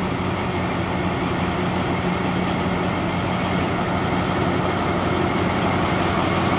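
Diesel engine of an SRT Alsthom AD24C diesel-electric locomotive running at low power as it creeps forward, a steady low hum that grows slightly louder as it draws near.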